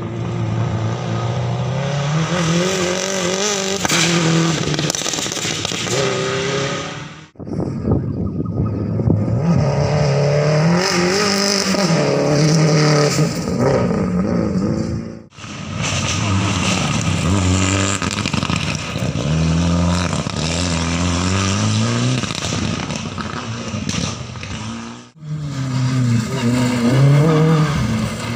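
Rally cars at full speed on a gravel stage, engines revving hard and rising and falling in pitch through gear changes, over the rush of tyres on the loose surface. The sound breaks off suddenly three times, each break followed by another car's pass.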